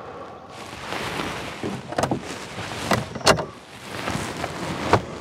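Rustling of bedding being shifted inside a car, with four sharp knocks, the loudest about a third of the way through.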